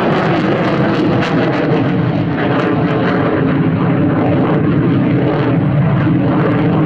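Boeing F-15QA's twin General Electric F110 jet engines, a loud, steady jet roar from the fighter flying overhead, with a rapid crackle running through it.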